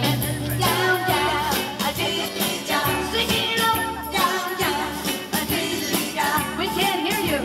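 Pop song with singing, a steady beat and jingling tambourine-like percussion.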